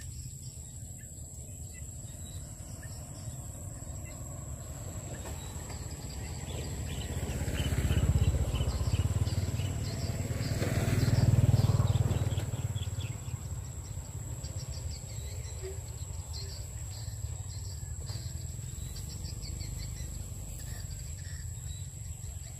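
Rural outdoor ambience: small birds chirping over a steady low rumble. The rumble swells twice, loudest about eight and again about eleven seconds in, then settles back.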